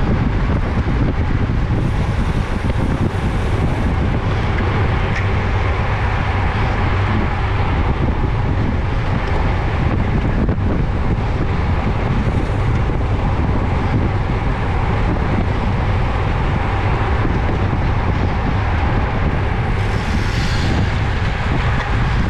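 Wind rushing steadily over a bicycle-mounted camera's microphone while the bike moves at speed: a constant low rumble with hiss above it.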